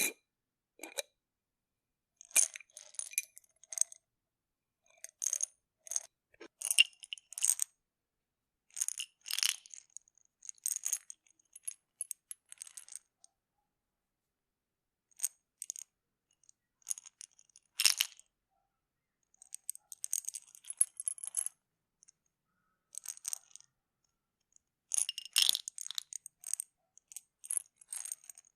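Pill bottle being opened and closed, pills rattling inside and the cap clicking, in short bursts of clicks and rattles with pauses between.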